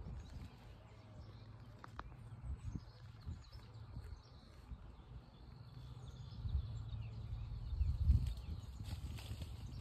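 Outdoor ambience: a low rumble on the microphone that swells about six to eight seconds in, with faint bird chirps high in the background.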